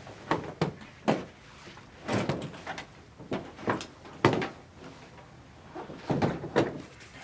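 A massage chair's backrest being lowered into the seat brackets and locked into place: a series of short knocks and clunks, some with a brief ring, scattered irregularly, the densest around two seconds in and again near the end.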